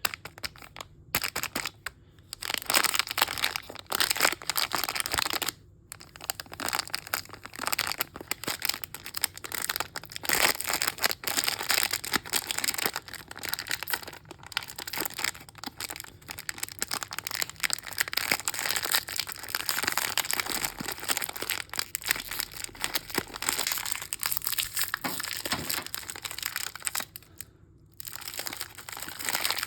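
Plastic mystery-bag packaging crinkling and crackling as it is handled and opened by hand. The crinkling runs almost without a break, with short pauses about a second in, near six seconds and a couple of seconds before the end.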